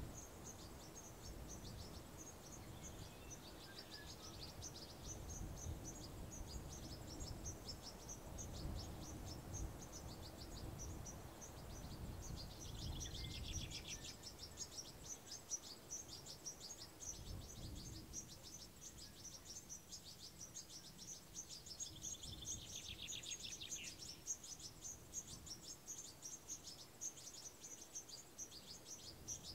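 Faint rural countryside ambience: a dense, rapid high chirping of insects throughout, with a bird giving a short falling call twice, about 13 and 23 seconds in. A low rumble of wind comes and goes, mostly in the first half.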